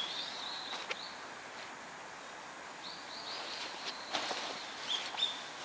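Small birds chirping, short high calls repeated in little runs, with a few soft rustles and knocks as someone climbs out of a canvas tent.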